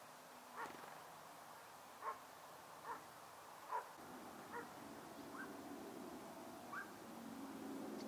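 Seven short, sharp animal calls at uneven intervals over about six seconds, set against a faint steady outdoor hiss.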